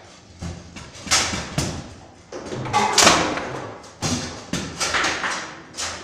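Bonzini table football in play: a quick, uneven series of about ten sharp knocks and clacks as the figures strike the ball and the rods bang against the wooden table. The loudest knock comes about three seconds in.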